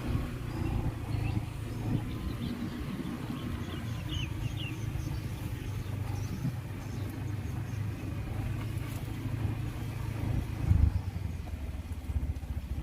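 Vehicle engine running with a steady low rumble, swelling louder about eleven seconds in. A few faint high chirps are heard around the middle.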